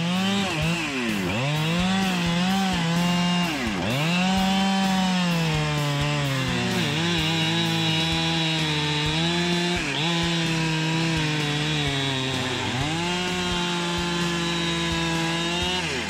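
Petrol chainsaw running at high revs while cutting wood. About five times its engine speed drops sharply and climbs back up.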